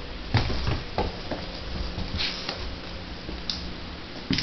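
A kitten scampering and pouncing on a tiled floor and a rug: scattered light thumps and taps of its paws landing, a few of them a second or so apart.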